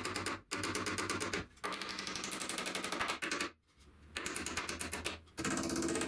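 Cordless impact driver hammering in rapid bursts, driving screws into timber framing, with short pauses between the bursts and a longer pause in the middle.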